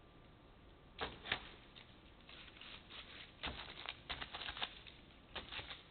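Adhesive tape being peeled low and flat off the sealed seam of a Brunswick Anvil synthetic bowling lane, shearing through the dried silicone sealant along the joint. It makes two sharp clicks about a second in, then runs of quick crackling that grow denser from about three and a half seconds in.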